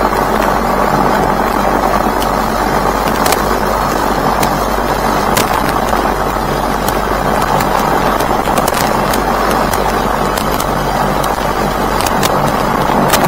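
Steady drone of an aircraft in flight heard from on board, with a low engine hum under rushing air noise and occasional faint clicks.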